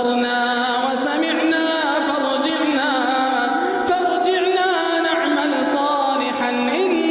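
Chanted Quran recitation: a single voice holding long, drawn-out notes with melismatic turns and wavering ornaments.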